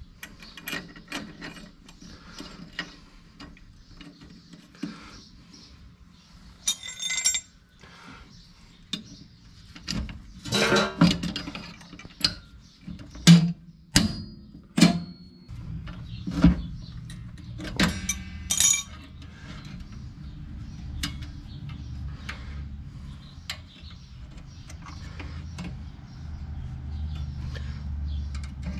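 Metal clicks and clinks of drum brake hardware (return springs, self-adjuster cable and lever) being hooked into place by hand and with pliers on the backing plate. The loudest clinks come in the middle, a few ringing briefly. A low steady hum sets in about halfway through.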